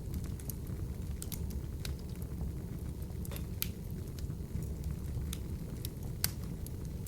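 Open wood fire burning in a fireplace: a steady low rumble of flames with frequent sharp crackles and pops, the loudest pop about six seconds in.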